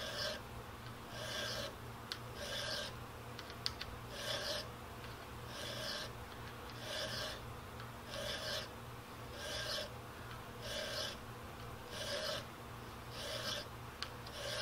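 Round chainsaw file (a Harbor Freight one) rasping across a steel rifle barrel in a vise as it cuts a handguard retainer notch. The strokes are even, one about every second and a half. The file is well used, and the owner thinks it may be past its use.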